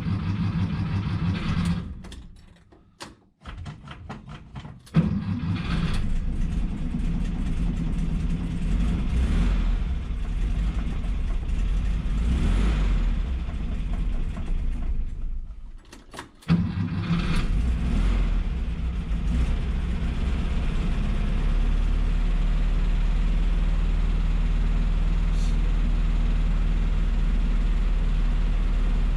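A 1963 VW Bus's air-cooled flat-four engine runs briefly and dies. It starts again about five seconds in and runs unevenly, dies again about halfway through, then starts once more and settles into a steady idle. The owner says the carburettor needs a little adjustment.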